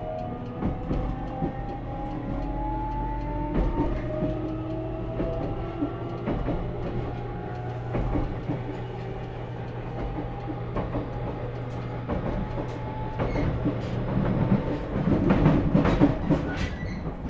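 Toshiba GTO-VVVF traction inverter of a JR Kyushu 813 series motor car, heard from inside the car, whining in several tones that slowly rise in pitch as the train gathers speed, over a steady low hum. The wheels clatter over the rail joints throughout. The hum stops about three seconds before the end, and a burst of louder wheel clatter follows.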